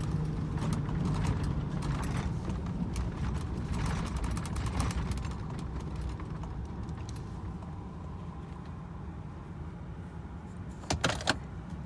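A vehicle engine idling steadily, with scattered clicks and knocks over the first few seconds and a short burst of sharp clicks near the end.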